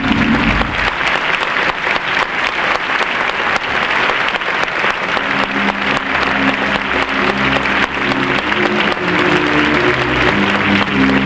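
Theatre audience applauding, a dense steady clapping. Music with held notes comes in under the applause about five seconds in.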